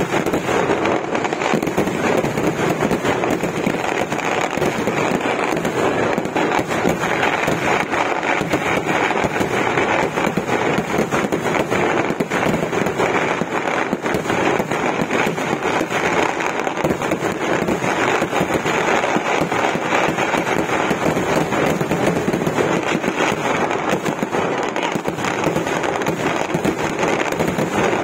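Kerala temple fireworks (vedikettu) going off in a dense, unbroken barrage: countless firecracker and shell explosions crackling continuously with no pause.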